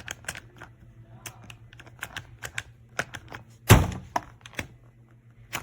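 Irregular plastic clicks and taps from handling the hard-shell suitcase's TSA combination lock and latch, with one louder thunk about two-thirds of the way through.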